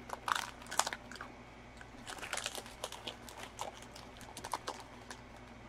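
Small plastic collectible figures and their stands being handled: scattered light plastic clicks and crinkles, busiest in the first second and again around two to three seconds in.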